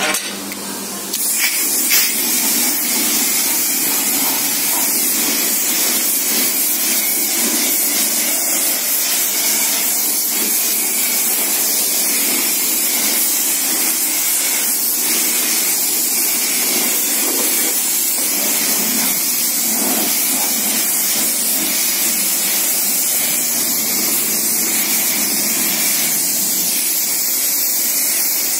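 Car-wash foam lance spraying thick foam onto a car's bodywork: a steady, loud hiss that starts about a second in.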